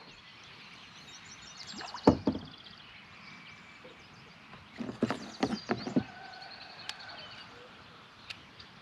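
Hollow knocks and thumps in an aluminum bass boat: one sharp knock about two seconds in and a cluster of several between five and six seconds. Birds trill and chirp around them.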